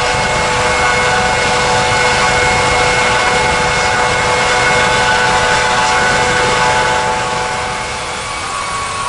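A large vehicle engine running steadily with a steady high whine over a noisy rush, easing off slightly about seven seconds in.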